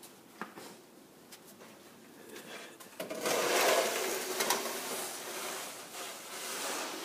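Snow shovel scraping along a concrete driveway as it pushes snow: faint scrapes and taps at first, then a loud, continuous rough scrape starting about three seconds in.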